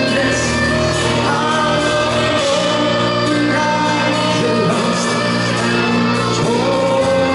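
Live cello-metal band, amplified cellos and drums, with a male lead vocalist singing over a steady, sustained accompaniment.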